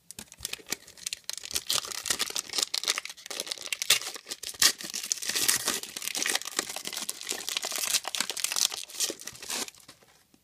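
Trading-card pack wrapper being torn open and crinkled in the hands: a dense run of crackling that stops about a second before the end.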